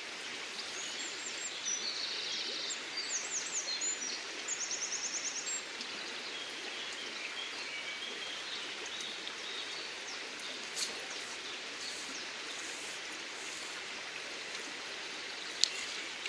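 Steady rush of flowing river water, with a small songbird singing high, quick phrases about one to five and a half seconds in, ending in a fast run of repeated notes. A single sharp click near the end is the loudest sound.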